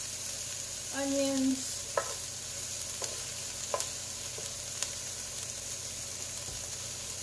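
Diced onions, peas and carrots sizzling steadily in a nonstick skillet while being stirred with a wooden spatula, which taps against the pan a few times.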